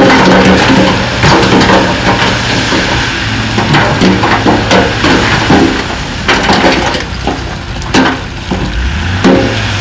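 Shantui DH17C2 bulldozer pushing rock: stones crunching, cracking and clattering against the blade over the steady hum of its diesel engine.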